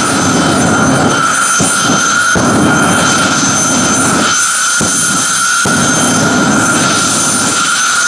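Jet engine of a jet-powered drag funny car running loud with a steady high turbine whine, and a low afterburner rumble that surges in pulses as it spits flame. The rumble drops away about four and a half seconds in and returns about a second later, while the whine carries on.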